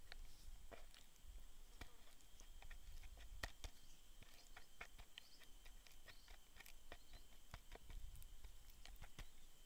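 Fingers patting and rubbing flour into raw mackerel tuna pieces on a wooden board: faint, irregular soft taps and smacks of hand on wet fish.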